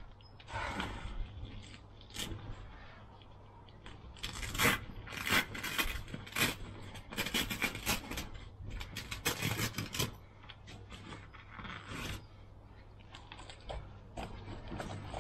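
A Nash Titan T1 Mk2 bivvy being handled during setup: its fabric rustling and scraping, with many sharp clicks from the frame and fittings, busiest and loudest in the middle.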